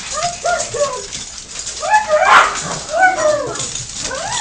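Dog whining and whimpering in a run of short rising-and-falling cries, the excited noises of a dog greeting its owner.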